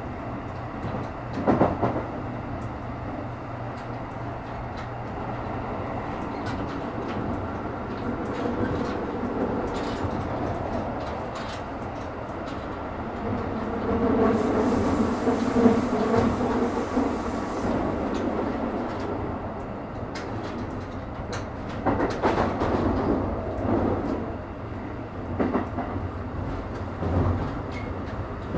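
Keikyu 1000 series (1890 subgroup) electric train running at speed: a steady rumble of wheels on rail with scattered clicks and a few thumps over the track. About halfway through, the sound swells for several seconds and carries a thin, high-pitched whine.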